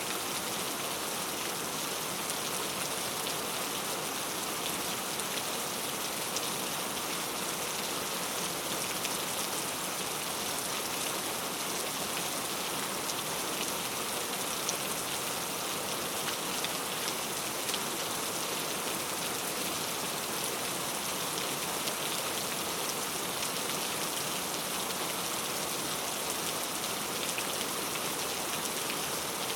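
Heavy rain falling steadily, a dense even hiss with scattered drops pattering on surfaces.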